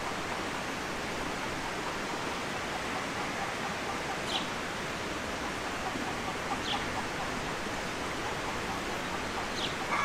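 Domestic chickens clucking faintly over a steady rushing hiss, with short high bird chirps about four, seven and nine and a half seconds in.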